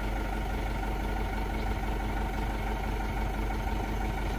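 Sumitomo SH120 A1 excavator's diesel engine running steadily, with the hydraulic pump set up to load the engine more heavily.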